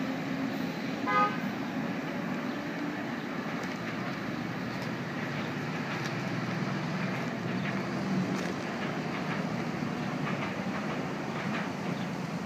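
Steady low rumble, with one short horn toot about a second in.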